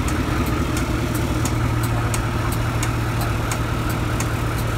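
Ford C-series fire truck's diesel engine idling steadily, with a light ticking about three times a second over the hum.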